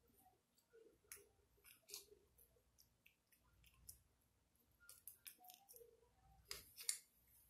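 Faint, irregular clicks and small sticky handling noises, a little busier near the end: homemade gel slime and its container being handled.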